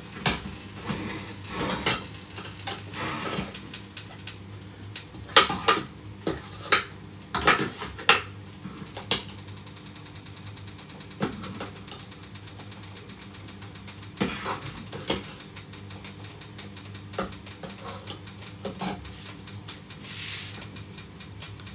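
Dishes, pots and utensils clinking and knocking as someone handles them at a kitchen counter, in scattered strikes that are loudest about five to eight seconds in. A steady low hum runs underneath.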